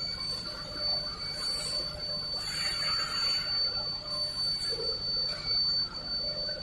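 Production-line machinery running: a steady high-pitched whine over a low rumble, with a brief hiss about two and a half seconds in.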